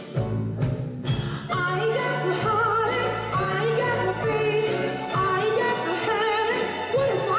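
A woman singing a jazzy song into a microphone, accompanied by a mandolin and string orchestra. Her voice comes in about a second and a half in, holding notes with a wide vibrato over the steady accompaniment.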